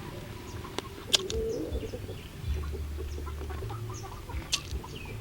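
Chickens clucking, with short chirps and two sharp clicks, one about a second in and one near the end.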